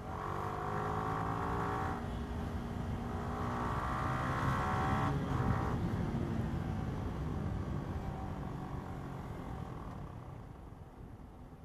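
Yamaha R15 V3's 155 cc single-cylinder engine accelerating hard. The revs climb, drop at a gear change about two seconds in, and climb again until about six seconds in. Then the throttle eases off and the engine note quietens toward the end.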